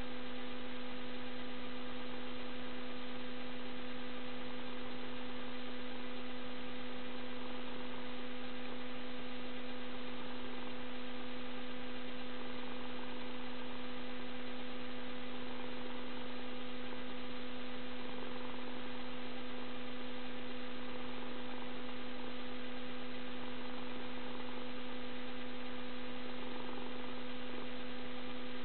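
Steady electrical hum, one constant low tone with a fainter higher one, unchanging throughout.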